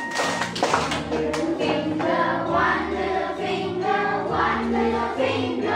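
A class of children singing a song together, over recorded backing music with a steady bass line.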